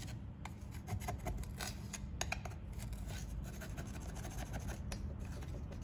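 A tool scraping and clicking against carbon in a two-stroke brush cutter's exhaust, loosening a heavy build-up that has clogged it.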